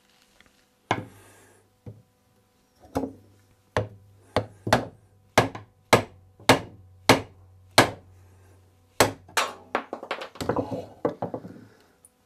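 Hammer blows on wood, about a dozen sharp knocks at first roughly a second apart, then coming faster and closer together near the end.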